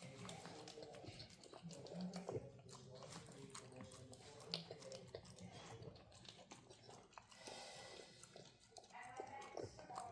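Puppy chewing and gnawing, faint irregular crunches and clicks.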